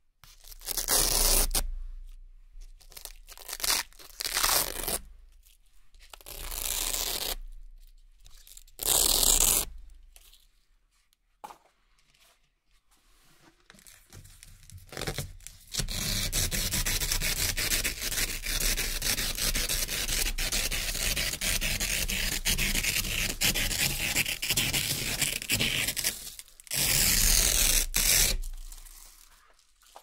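Velcro hook-and-loop strips being peeled apart one by one: four short crackling rips in the first ten seconds, then a long steady rip lasting about ten seconds, and a last loud rip near the end.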